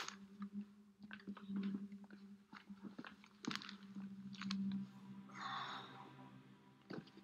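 A man's scuffling movement: clothing rustling and small knocks as he pulls back from a struggle and stands, with a heavy breath about five seconds in, over a low steady hum.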